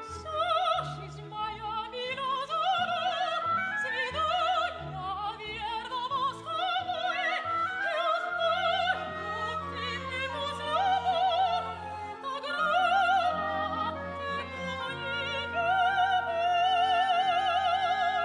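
Operatic soprano singing with vibrato over an orchestra, her line climbing in phrases over sustained low strings and ending in a long held note.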